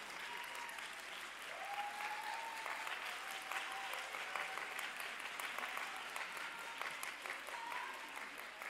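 Audience applauding, with many hands clapping steadily and a few faint voices calling out over it.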